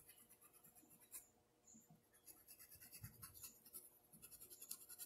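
Faint scratching of a paintbrush scrubbing paint into thin Oxford fabric in short runs of quick strokes, with a soft low thump about three seconds in.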